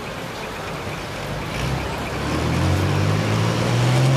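Pro stock pulling tractor's diesel engine revving up at the line, its pitch climbing steadily from about halfway through as it builds for the pull.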